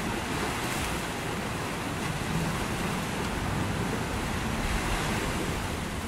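Ocean waves washing onto a beach under strong wind: a steady rushing noise with an uneven low rumble from wind on the microphone.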